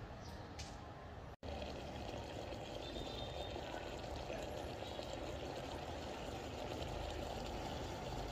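Steady watery hiss from a 9Barista espresso maker heating on an electric hot plate, as the water in its boiler comes up toward the boil before any coffee has come through. The sound breaks off for an instant about a second and a half in.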